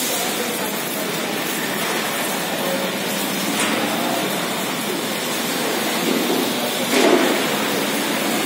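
ATS ELGI automatic rollover car wash running, its water jets spraying: a steady rushing hiss, with a brief knock about three and a half seconds in and a louder one about seven seconds in.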